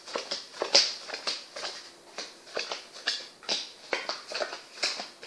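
Playing cards being dealt one at a time onto a cloth-covered table: an irregular series of soft snaps and flicks, about two to three a second, as each card leaves the deck and lands.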